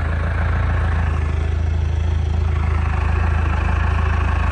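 Engine of an old rough-terrain forklift running at a steady idle.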